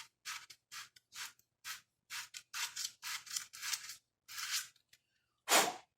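Hand sanding with sandpaper: quick back-and-forth scratchy strokes, about two to three a second, a short pause, then one last louder stroke near the end.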